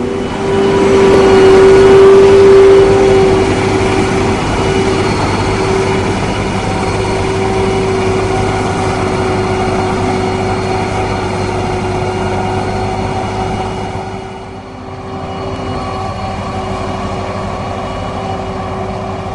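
Krone BigX 500 self-propelled forage harvester running under load while chopping Sudan grass with its Easy Collect 7500 header: a loud, steady engine drone with a strong steady whine on top. It is loudest in the first few seconds, eases off about fourteen seconds in, then runs steady again.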